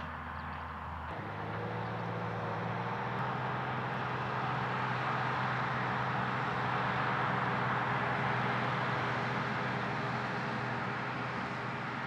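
Big-A 2800 floater's turbocharged 8.3-litre Cummins straight-six diesel running under load as the machine drives past. It grows louder toward the middle and then fades, and the engine note shifts about a second in.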